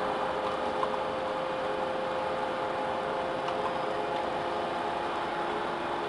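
Hydraulic scrap metal baler's power unit running steadily: a motor-and-pump hum with a steady whine, a lower tone joining about three-quarters of the way through.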